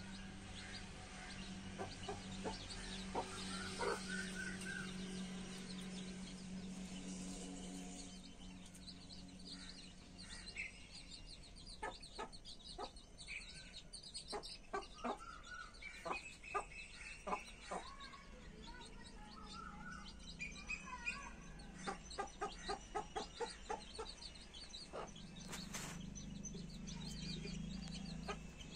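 Hen clucking while her newborn chicks peep around her. The chicks' peeps are short, high and frequent. Past the middle the hen gives a run of quick clucks, about four a second.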